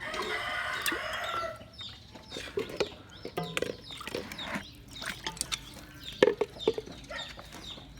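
Chickens clucking, with many short, high, falling chirps and scattered clicks. A noisy rustling burst fills the first second and a half.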